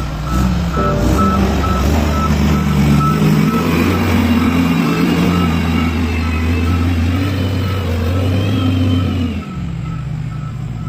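SDLG motor grader's diesel engine working under load, with evenly spaced beeps from a reversing alarm. A wavering high whine runs through the middle, and the engine sound drops slightly near the end.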